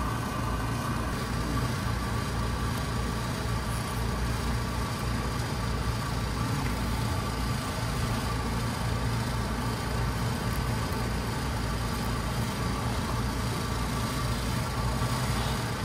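Steady machinery hum of rooftop air-conditioning equipment running nearby: a low rumble with a faint steady whine above it.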